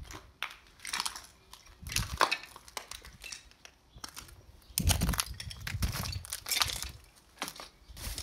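Footsteps crunching on broken glass and brick rubble, slow and uneven at about one step a second, with a short pause midway.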